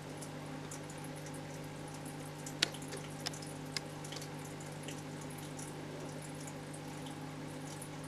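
Small aquarium filter running: a steady low hum with water trickling through it. A few faint ticks come about a third of the way in.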